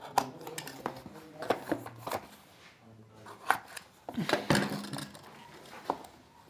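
Snap-off utility knife slitting the end of a cardboard box, heard as irregular scratchy cuts and clicks, with the box being handled and tapped about in a louder cluster of knocks about four and a half seconds in.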